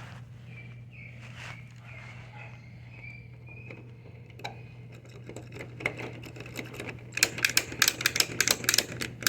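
Manual lock pick gun (snap gun) worked in a door-knob lock: faint scraping and ticking of the tools in the keyway, then near the end a rapid run of sharp metallic snaps, about seven a second, as the trigger is squeezed over and over to bounce the pins.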